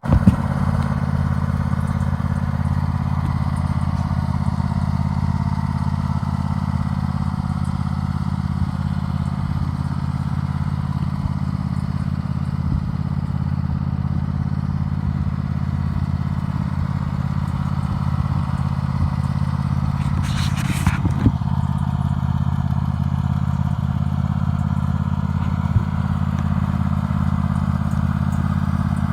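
Simplicity Regent 22 hp riding lawn mower engine running steadily at a constant speed, with a brief clatter about two-thirds of the way through.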